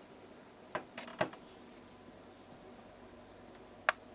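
Four sharp clicks over a faint steady hiss: three close together about a second in, and a louder single one near the end.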